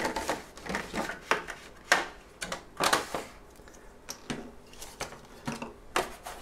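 Unpacking handling noise: a clear plastic packaging tray crackling and a sensor with its coiled cable and a small rubber suction cup being set down on a wooden desk, a scattered run of light clicks and knocks.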